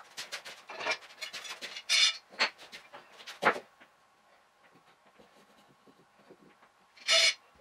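Sped-up workshop handling noise: a wooden frame and blocks knocking, clattering and scraping on a wooden workbench. A quick run of knocks with a few short hissing scrapes, the loudest about two seconds in, a sharp knock about three and a half seconds in, and another scrape near the end.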